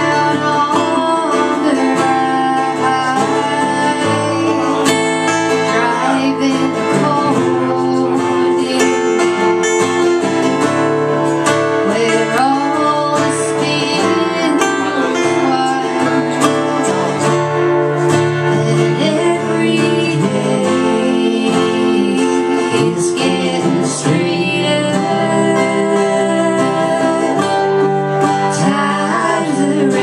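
Two acoustic guitars playing a song together.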